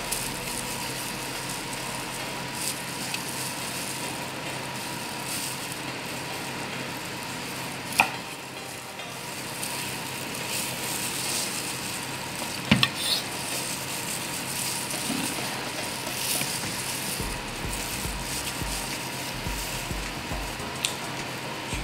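A chef's knife cutting a boiled whole chicken into pieces on a wooden cutting board, with a few sharp knocks of the blade striking the board, the loudest about eight seconds in and a quick pair about thirteen seconds in, over a steady hiss.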